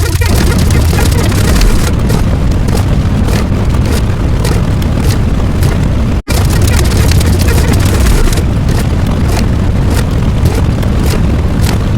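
Loud, dense rumbling sound effect, strongest in the low bass, with a very brief break about six seconds in.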